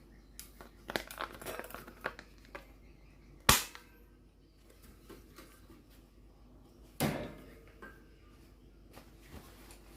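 Fan parts being handled and fitted together during assembly: a run of light knocks and rattles, a sharp click about three and a half seconds in, and another knock with a short ring at about seven seconds.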